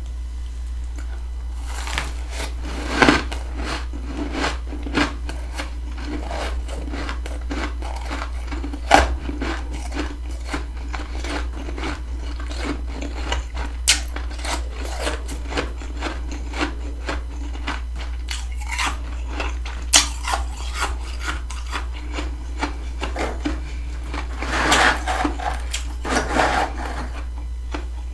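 Close crunching and scraping of humidifier-grown freezer frost as it is bitten and eaten, with irregular crisp crackles and a few louder crunches, over a steady low hum.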